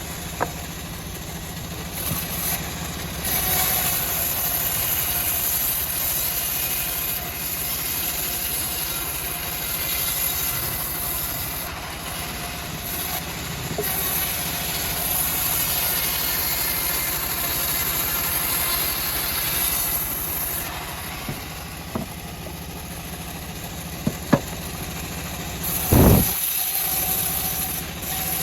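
Homemade bandsaw sawmill running steadily, its motor with a high hiss that comes and goes as the blade works through teak. A few sharp knocks, and one loud thud near the end.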